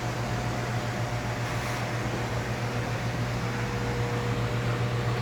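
Steady low hum with an even hiss from running machinery, such as a fan or pump, with a faint high tone joining about three and a half seconds in.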